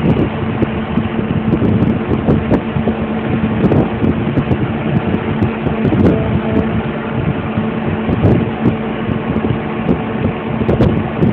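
Heavy diesel machinery engine running steadily, a constant hum with irregular rattling and knocking, heard from inside a vehicle cab.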